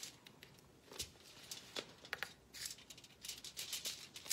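Crisp toasted tortilla being cut and pulled apart on a foil-lined metal baking sheet: a scattered run of short crackles and scrapes.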